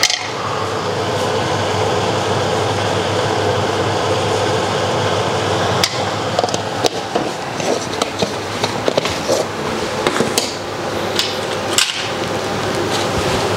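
A steady fan-like whir with a low hum, and from about six seconds in several sharp knocks and clicks: a wooden spoon knocking against the bowl while raw minced beef and spices are stirred.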